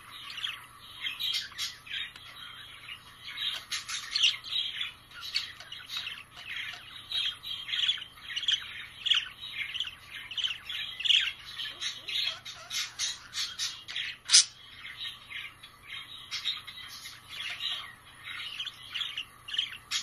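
A group of budgerigars chattering, a rapid, unbroken stream of short chirps and warbles. One sudden sharp sound stands out about two-thirds of the way through.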